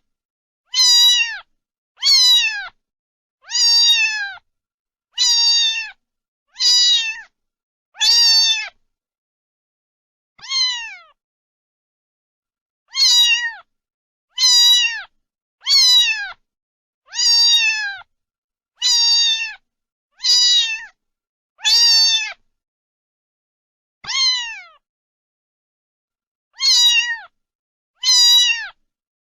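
Domestic cat meowing over and over: high, insistent meows about half a second each, most falling in pitch at the end, coming about one every second and a half with a few longer pauses.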